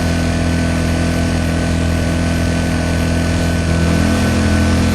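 Yamaha EF1000iS inverter generator's small four-stroke engine running steadily at full speed in its warm-up cycle, as loud as this generator gets. It is a steady engine hum that rises slightly in level about four seconds in.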